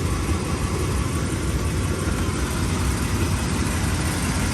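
A Toyota Land Cruiser / Lexus LX470's engine idling steadily, heard from outside the vehicle. It is being left to run so the A750F automatic transmission fluid warms to about 115–130°F for a level check.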